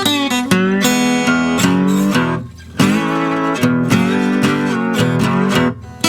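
Acoustic flat-top guitar played with a stainless steel slide: plucked notes that glide in pitch and ring, in short phrases with a brief pause in the middle.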